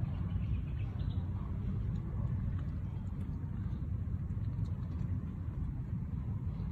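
A steady low rumble of outdoor background noise, with a few faint small clicks above it.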